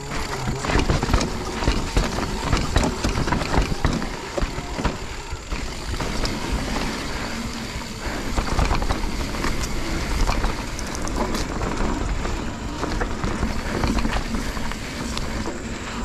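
Full-suspension mountain bike rolling down a dirt forest singletrack: a continuous rumble of tyres on dirt and roots, with frequent clicks and knocks as the bike rattles over bumps.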